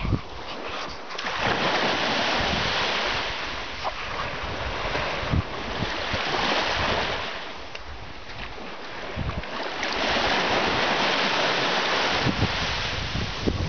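Small waves breaking and washing up a sandy shore, a broad hiss that swells and fades every few seconds, with wind buffeting the microphone now and then.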